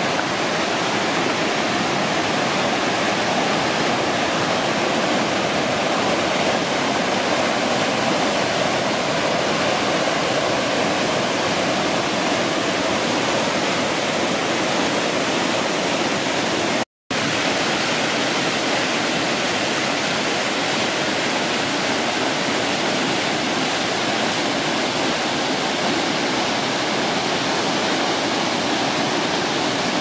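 The Krimml Waterfalls, heavy white water falling and crashing into a rocky pool: a loud, steady rush of water, cut off for an instant a little over halfway through.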